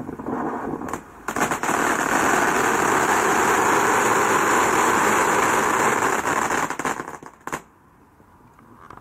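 Gold crackling fountain firework spraying sparks with a steady hiss and dense crackling. It starts weaker, surges loud a little over a second in, and dies away about seven seconds in with a last crack.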